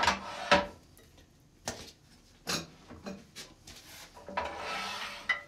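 A steel bowl gouge and a wooden bowl being handled at a stopped lathe: a series of short knocks and clinks, then a longer scrape about four and a half seconds in.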